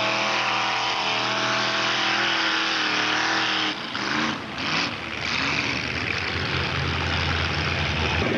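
Mud-racing pickup truck's engine running hard at a steady, high pitch. About four seconds in, the sound breaks off briefly and gives way to a rougher, more distant engine running flat out.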